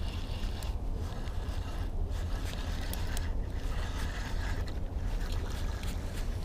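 Steady low rumble aboard a small fishing boat, with a few light clicks of a spinning reel and rod as it is worked and cast.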